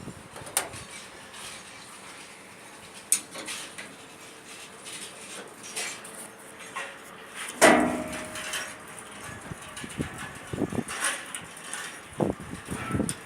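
Metal parts and tools being handled during repair of a combine's unloading auger: scattered knocks and clicks, and one loud clank about halfway through that rings briefly.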